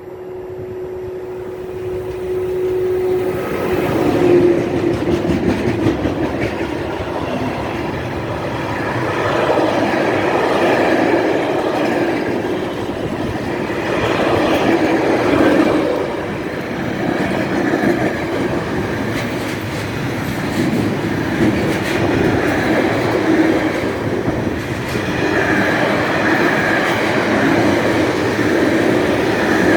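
Siemens Taurus electric locomotive hauling a stacked-container freight train past: a steady hum as it nears, rising to full loudness about three to four seconds in, then the continuous rumble and clatter of steel wheels on rail as the container wagons roll by, swelling and easing.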